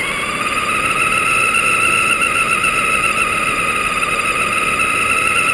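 Remote-control car's motor and drivetrain whining as it drives over pavement. The whine rises in pitch during the first second, then holds steady over the rush of the tyres.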